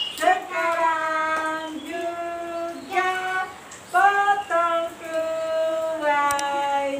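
A woman and a child singing a birthday song together, with long drawn-out notes.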